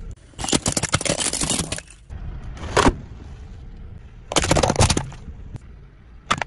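Packaged snacks and plastic containers being crushed under a car tyre: crunching and crackling of plastic and packaging in three separate bursts, the first and longest about a second and a half, then a brief sharp crack near the end.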